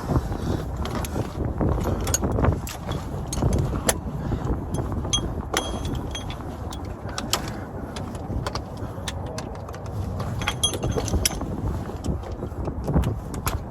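Hand tools and sockets clinking and clicking against metal bolts and parts in irregular sharp strikes, some with a short metallic ring, over low rumbling wind buffeting the microphone.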